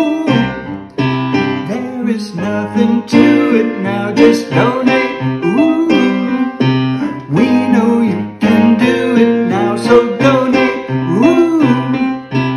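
A pop song with keyboard and guitar, in a stretch between sung lines.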